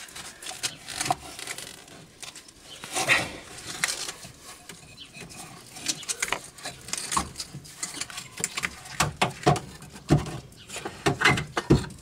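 Irregular metal knocks, clunks and scrapes of a car air-conditioning compressor being worked loose from its mounting bracket and lifted out of the engine bay by hand. The sharpest knocks come about three seconds in and again near the end.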